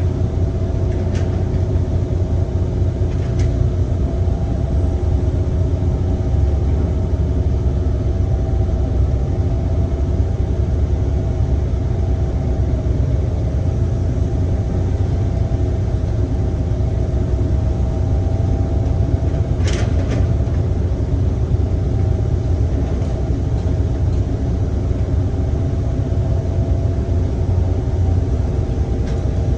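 Heavy diesel construction machinery running steadily at a low, rumbling drone, with a few faint knocks early on and one sharp metallic clank about two-thirds of the way through.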